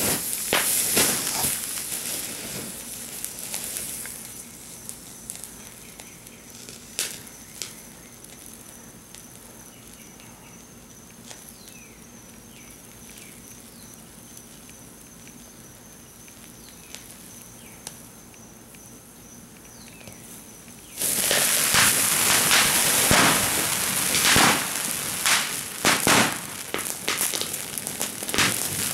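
Ground fountain fireworks spraying sparks, a continuous hissing crackle dotted with sharp pops. The first fountain dies down a few seconds in, leaving scattered faint pops, and a second one bursts loudly into life about two-thirds of the way through.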